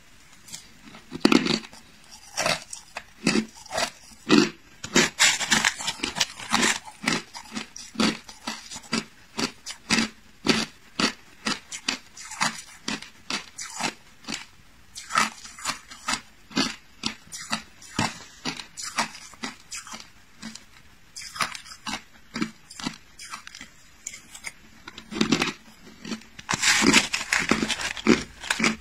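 Hard clear ice being bitten and chewed: a run of sharp crunches about two a second, with denser flurries of cracking around five seconds in and again near the end.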